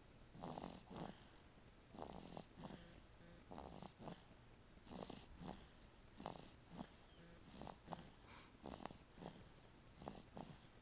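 Faint snoring in sleep: short rasping breaths coming in pairs, about one pair every second and a half, in a steady rhythm.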